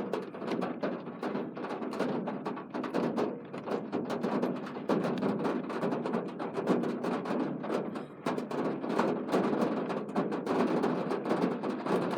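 Rain falling steadily, a dense patter of drops tapping on a hard surface.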